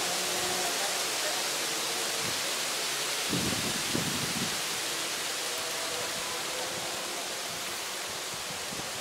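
Steady, even hiss of outdoor background noise. A brief louder rustle comes about three and a half seconds in.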